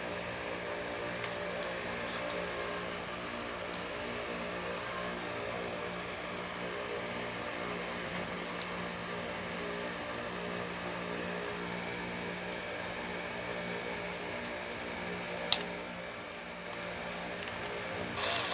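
A steady mechanical hum, with one sharp click about fifteen and a half seconds in.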